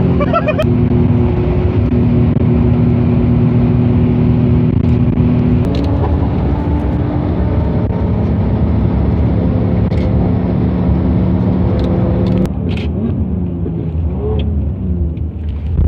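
Steady engine drone with road and wind noise inside a car's cabin at high motorway speed, around 200 km/h. The engine note shifts about six seconds in and drops away near the end as the car slows.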